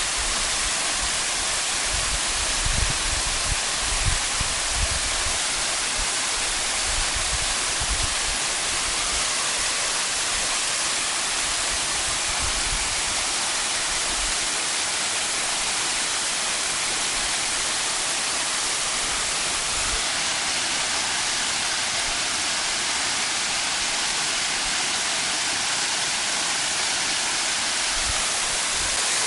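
Waterfall: a steady, loud rush of falling water. A few low bumps sit under it in the first several seconds.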